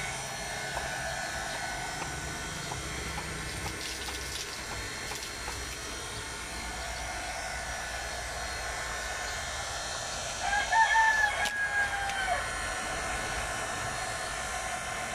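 A small 12-volt DC solar surface water pump runs steadily, its outlet pipe pouring a stream of water onto wet concrete. A rooster crows once, about ten seconds in, and this is the loudest sound.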